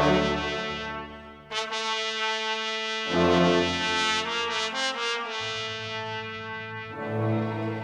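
Background music of held chords that change every second or two.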